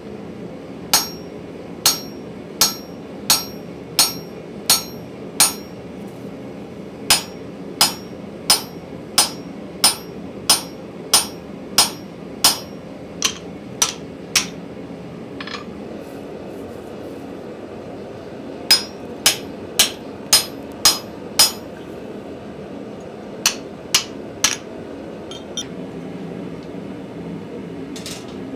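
Hand hammer striking steel on an anvil, with sharp ringing blows about one and a half a second in several runs separated by short pauses. A steady low background noise runs beneath.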